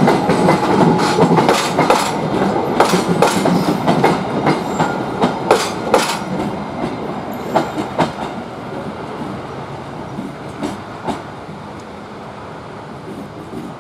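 Wheels of a rake of stainless-steel passenger coaches clicking over rail joints as a diesel locomotive hauls them away while shunting. The clicks come thick and loud at first, then thin out and fade over the second half as the train draws off.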